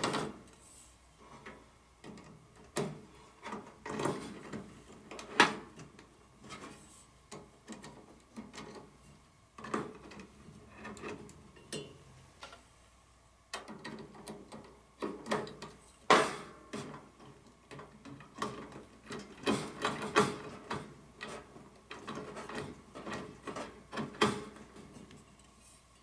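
Fluorescent T8 tubes being fitted into a metal four-light shop-light fixture: irregular clicks, knocks and light scrapes as the tube ends are seated in the sockets and the tubes and hands bump the metal housing.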